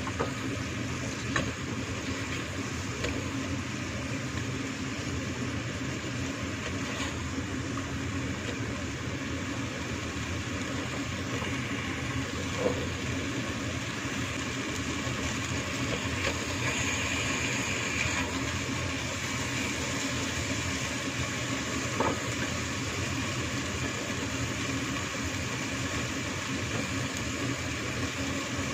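Marinated beef simmering in a pot as its liquid cooks down: a steady bubbling, sizzling noise over a constant low hum, with a few sharp clicks.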